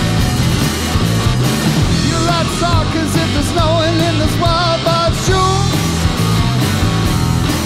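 Rock band playing: electric guitar and drum kit, with a man singing with a wavering pitch from about two seconds in.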